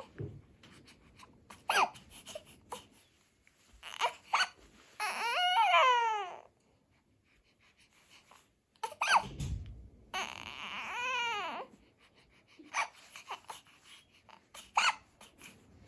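A baby fussing: two longer wailing cries whose pitch rises then falls, with short squeaks and breaths between them.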